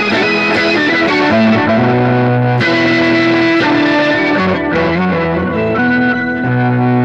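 An improvised instrumental piece on guitar played through effects: sustained notes moving from one pitch to the next, then a low note held near the end.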